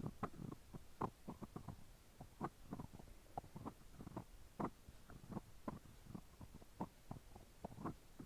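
Irregular soft clicks and taps on a small hollow capsule, several a second and uneven in strength, with a few sharper knocks among them.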